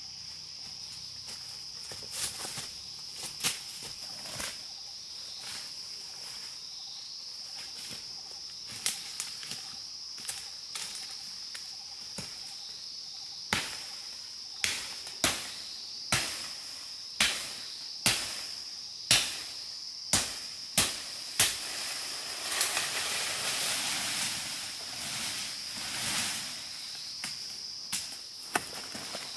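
Steady high-pitched insect drone in forest. About halfway through, a run of sharp knocks comes roughly once a second, followed by a few seconds of rustling through undergrowth and a few more knocks near the end.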